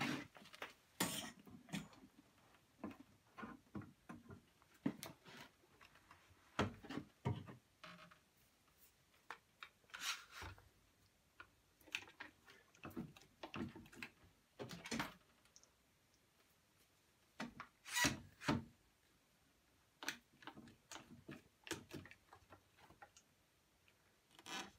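Scattered knocks, clicks and short rubbing noises of a wooden chair being handled and turned on a workbench while one-handed bar clamps are set and tightened on it.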